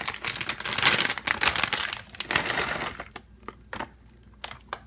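Plastic bag of walnut halves and pieces crinkling as it is handled and emptied, dense for about three seconds, then a few scattered clicks.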